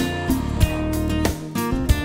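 Background music: a strummed guitar tune with a steady beat.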